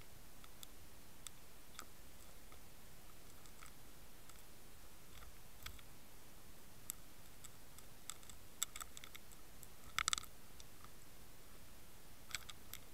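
Irregular sharp clicks and taps heard underwater through the camera housing as carp and tench nose at and bump the camera. They are scattered and become more frequent in the second half, with the loudest cluster about ten seconds in, over a faint steady hiss.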